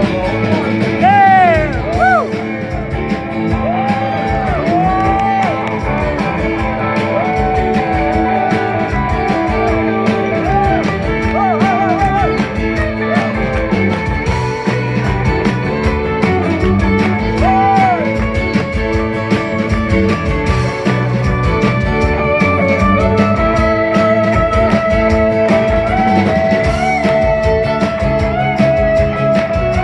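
Live rock band playing, with a lead solo on a 1961 Fender Stratocaster electric guitar: bent-string phrases over strummed acoustic guitar, drums and keyboard, and a long held note through the last quarter.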